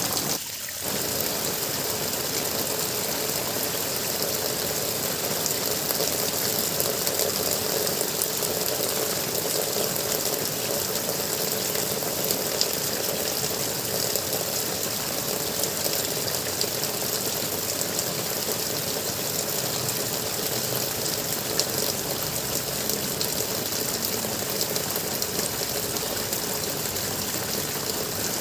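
Water gurgling and flowing steadily, with a brief dip in level just after the start.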